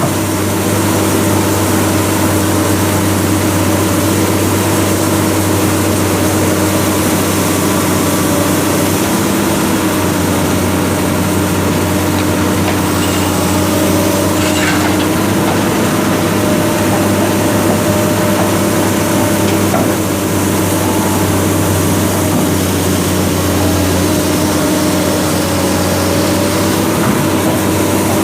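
Heavy machine's diesel engine running steadily at an even speed, a constant low hum with no change in pitch.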